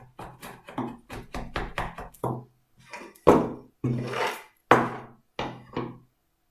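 Wood chisel being knocked into wood in an irregular run of sharp knocks, flattening the bottom of a shallow recess; the knocks stop about six seconds in.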